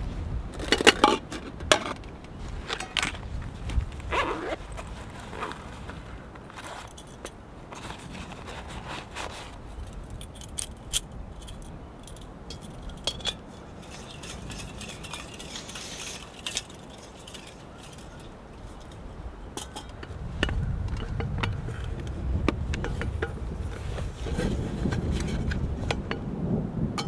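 Camp cook gear handled: metal pots and a fuel canister knock and clink as they come out of a bag and are set down, then small metallic clicks and scrapes as a folding canister stove is threaded onto the fuel canister. A low rumble comes in about two-thirds of the way through.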